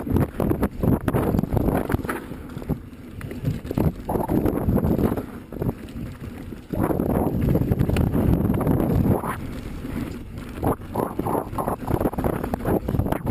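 Pivot Switchblade carbon mountain bike being ridden over a dirt trail: a rumble of tyres on the ground crossed by irregular knocks and rattles over bumps. It eases off for a few seconds near the start and again around the middle.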